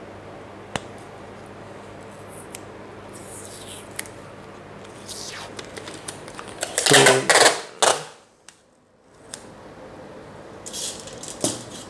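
Brown packing tape being pulled off its roll: a loud rasping screech about seven seconds in, after a few light clicks and rustles of handling, with more rustling near the end as the tape is laid on aluminium foil.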